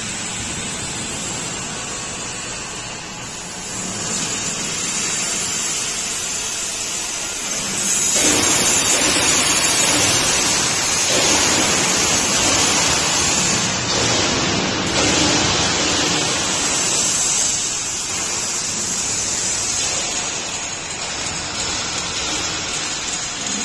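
Gas-fired deep fryer with a Riello forced-draft burner running: a steady rushing hiss that grows louder about a third of the way in and eases a little later on.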